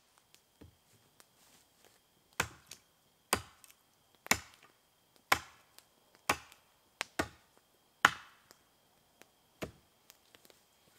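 Hatchet chopping into a wooden pole: about nine sharp strikes, roughly one a second, starting about two seconds in.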